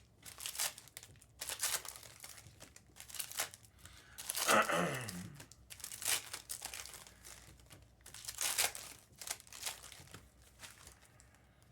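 Foil trading-card pack wrappers being torn open and crinkled by hand, in repeated short bursts about once a second. Near the middle there is a short, falling vocal sound.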